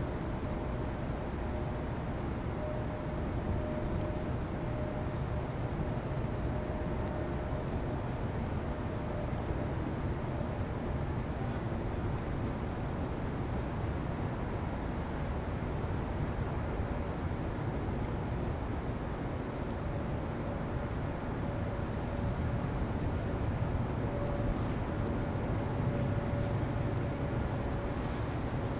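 Crickets trilling steadily and high-pitched at night, over a constant low rumble.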